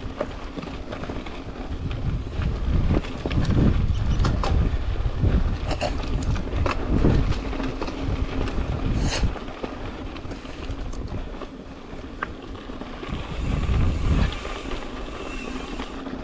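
Wind buffeting the microphone of a GoPro action camera during a mountain bike ride, over tyre noise on a dirt and rock trail, with sharp clicks and knocks from the bike bouncing over rough ground. The wind noise is loudest in the first half and again briefly near the end.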